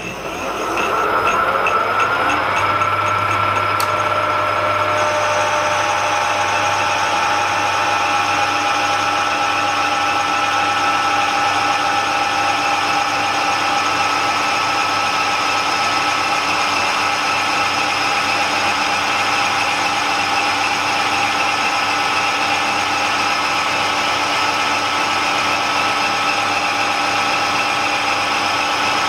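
Metal lathe spinning up over the first couple of seconds, then running steadily with a constant motor whine while a turning tool takes a facing cut, feeding towards the centre to machine a recess into the face of a locomotive driving-wheel blank.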